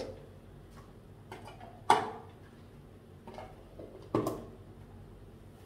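A few sharp knocks of kitchen containers being handled and set down on a tabletop, the loudest about two seconds in and another just after four seconds.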